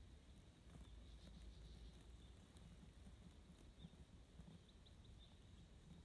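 Near silence: faint outdoor ambience, a low steady rumble with scattered tiny high ticks.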